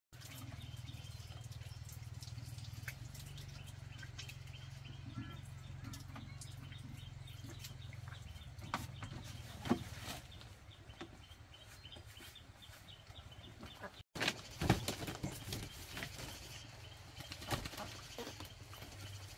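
Small birds chirping faintly in the background, with scattered sharp knocks and clicks of things being handled; a low steady hum runs through the first part and stops about halfway.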